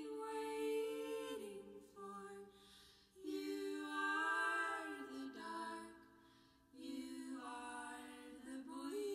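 Outro music of a cappella voices humming held notes in harmony, stepping from chord to chord in three short phrases with brief pauses between them.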